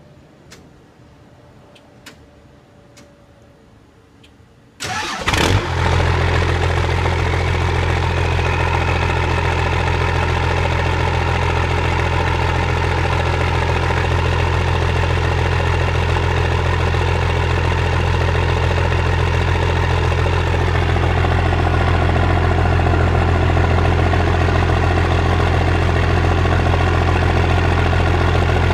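1989 Cummins 12-valve 5.9 L inline-six diesel starting from cold: it cranks briefly and catches about five seconds in, then idles steadily. Heard right at the exhaust tip.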